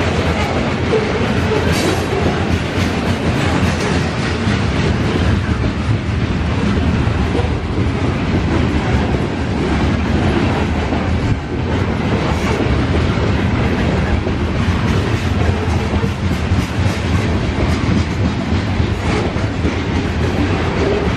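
Covered grain hopper cars of a long freight train rolling past at close range: steady wheel-on-rail noise.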